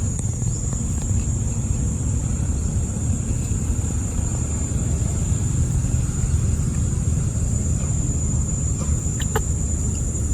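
Steady low rumble, like wind on the microphone or distant traffic, with a constant high-pitched insect drone over it. A few short chirps come about nine seconds in.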